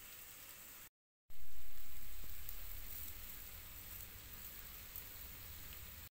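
Lamb brains, onions and oil sizzling in a clay tagine, a steady hiss. The sound cuts out briefly about a second in, comes back louder and then slowly fades.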